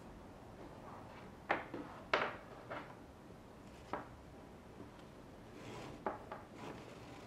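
Handling noise as cord is pushed and pulled through a footrope knot: faint rubbing with several short, light clicks and knocks.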